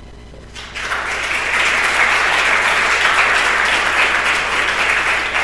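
Audience applauding, starting about half a second in and quickly building to full, steady applause.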